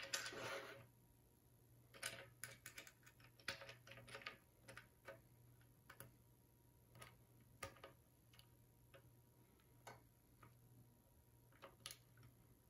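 Faint, irregular clicks and ticks of screws and a hex key working two screws into a 3D-printed plastic fan bracket, thickest in the first few seconds and sparser after.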